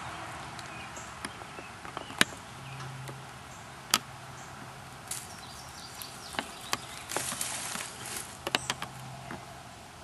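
Scattered sharp knocks and clicks of wood being handled as the sawn-open log and its comb are worked on, with a brief stretch of rustling about seven seconds in.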